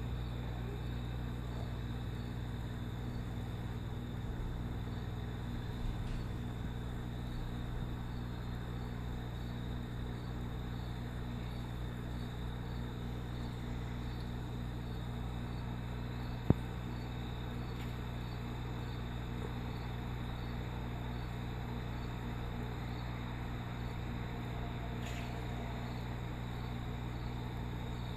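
Steady electrical hum of aquarium filter equipment, with a faint high whine carrying a soft repeating tick. A single sharp click about halfway through.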